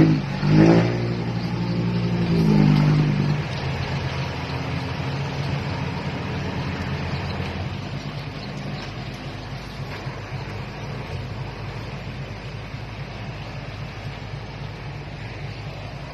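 A vehicle engine revs up and back down a couple of times in the first few seconds, then settles to a steady run.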